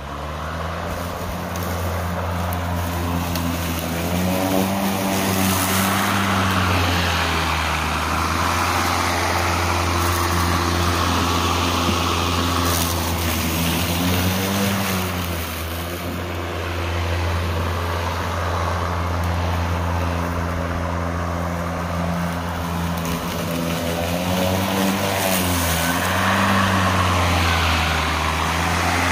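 Hart 40V brushless cordless push mower running steadily, its electric motor and blade making a strong low hum over a hiss as it cuts wet, thick grass into the bag. The motor's pitch rises and settles back a few times as the load changes.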